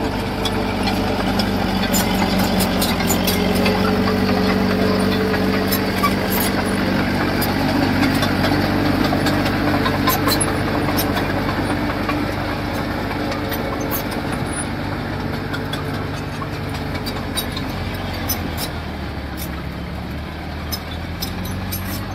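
Diesel engine of heavy construction machinery running steadily, with scattered short sharp clicks over it; the engine gets slightly quieter over the second half.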